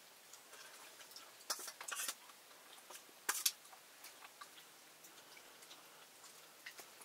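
Scattered light clicks and taps, with a few sharper ones about one and a half, two and three and a half seconds in.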